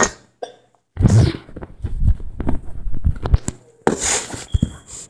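A person hiccuping, short sudden catches of breath, among irregular knocks and clicks.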